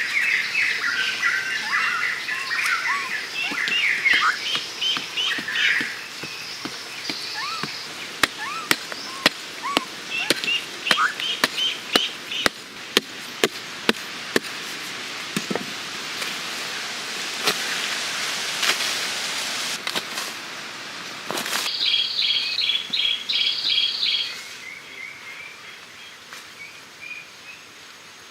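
Small birds chirping and singing in quick repeated notes. A run of sharp clicks or knocks comes in the middle, and a rushing hiss follows.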